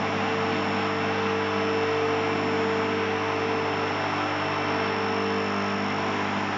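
Automotech AS-235SBE two-post car lift's single-phase electric hydraulic power unit running steadily, pumping oil into its twin rams to raise the empty arms and carriages. It makes a steady hum over a whirring noise.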